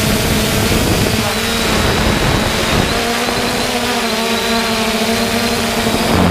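3DR Solo quadcopter's electric motors and propellers whirring steadily over a rush of air, with several steady tones that drift slightly in pitch as the motors adjust.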